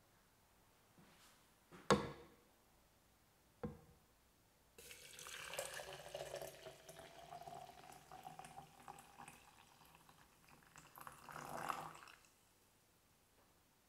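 Hot water poured into a glass French press over loose green tea leaves: a steady splashing pour whose pitch rises slowly as the press fills, stopping near the end. Before the pour, two sharp knocks, the first the loudest sound here.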